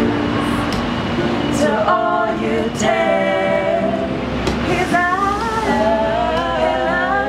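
A woman and two men singing a song together to a strummed acoustic guitar, with long held notes.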